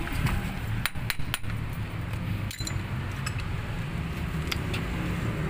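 Hand tools clinking and tapping on metal parts, a handful of sharp irregular knocks over a steady low hum.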